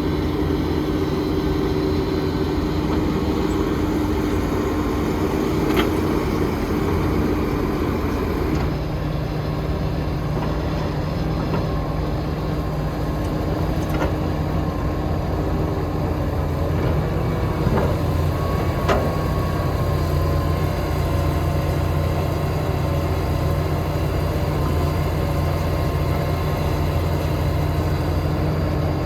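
Heavy diesel engine of construction machinery running steadily, its note shifting about a third of the way in, with a few faint clicks.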